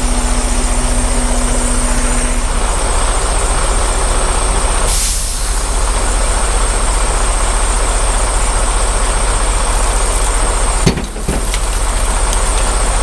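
Semi truck's diesel engine running steadily, with a brief hiss of released air about five seconds in.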